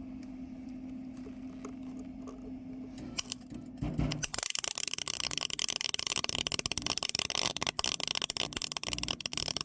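Electric welding arc crackling steadily as a bead is laid on the differential gears inside a lawnmower transaxle, locking them together. It starts about four seconds in, after a low steady hum.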